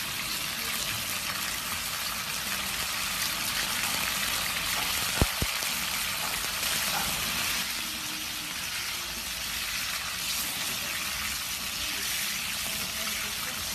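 Thin beef slices frying in a shallow pool of hot oil on a platter over a flame, giving a steady sizzling hiss. Two sharp clicks about five seconds in.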